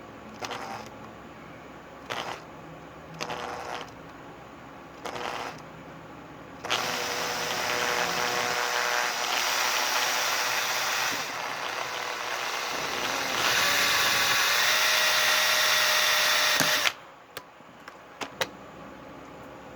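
Electric drill driving a screw: a few short trigger bursts, then a steady run of about ten seconds that gets louder and higher partway through and cuts off suddenly. A few light clicks follow.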